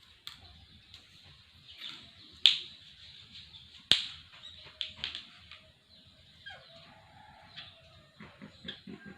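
Spoon being batted around by a cat, clattering in a scatter of sharp knocks and clinks. The two loudest knocks come about two and a half and four seconds in.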